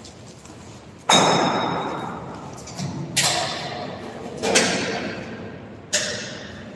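Four loud metallic bangs on the steel frame of a manual rotary screen printing press under assembly, spaced a second or two apart, each ringing out over about a second.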